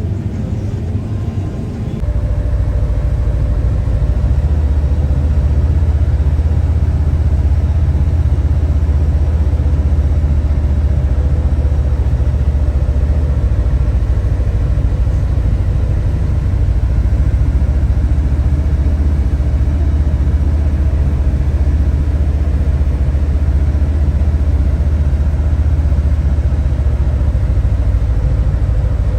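Heavy farm machine's diesel engine running steadily: a deep, even drone with a faint steady hum above it, setting in about two seconds in.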